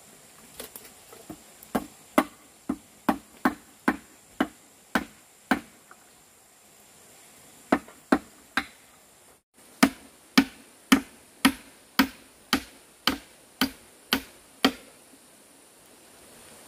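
Repeated sharp blows of a tool on wood, about two a second, starting with a few light taps and then running in two steady series with a pause of about two seconds in between.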